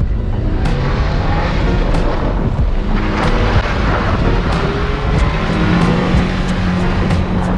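Nissan Sentra driven over desert dirt: engine running under load with tyre and gravel noise and scattered knocks from the car over bumps.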